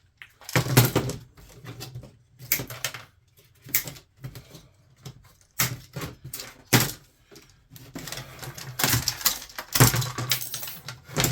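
Irregular sharp clicks and clacks of plastic and metal as a power strip is taken apart by hand and its brass contact strips are pulled free, with a couple of louder knocks.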